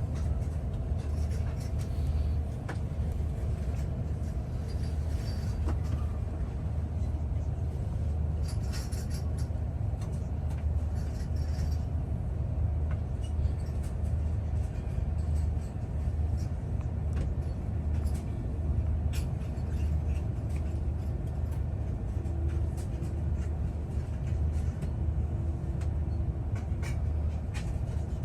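Steady low rumble of an Airbus A330-300 cabin, with scattered light clicks and knocks.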